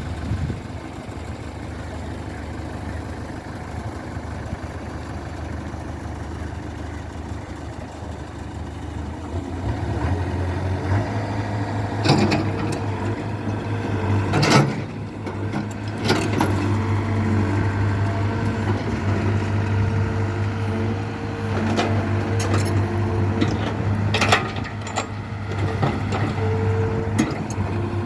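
Excavator's diesel engine running steadily, its drone rising in level about ten seconds in as the machine is worked. Several sharp knocks or clanks come through from about twelve seconds on.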